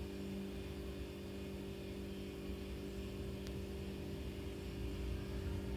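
A steady low electrical hum with a few even tones over a faint rumble.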